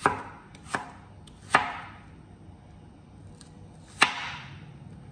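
Large kitchen knife chopping red onion on a plastic cutting board: four sharp knocks of the blade against the board, the first three in quick succession and the fourth after a pause of about two and a half seconds.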